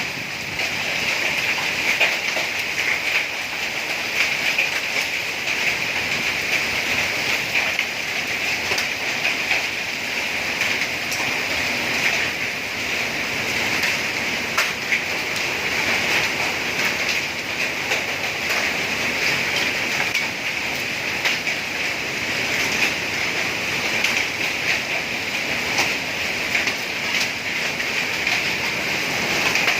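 Heavy rain with hail in a summer storm: a dense, steady patter, with many sharper ticks of single impacts scattered through it.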